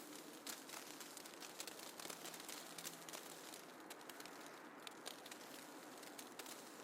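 Faint snowfall ambience: a soft, even hiss scattered with many small crackles and ticks.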